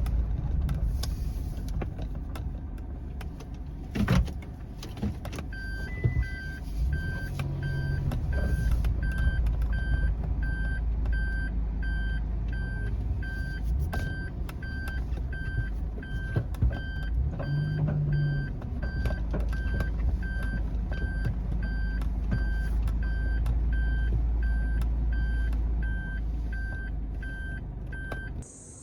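Car driving, with a steady low rumble of engine and road and a few knocks and bumps. From about six seconds in, an electronic beep repeats steadily, about one and a half times a second, and stops just before the end.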